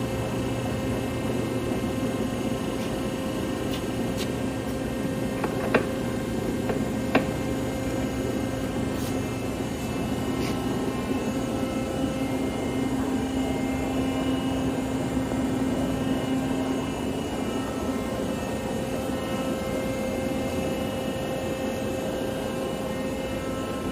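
1974 Monarch Model 80 engine lathe running with its spindle and four-jaw chuck turning: a steady mechanical hum from the headstock gearing and drive, with two brief clicks about six and seven seconds in.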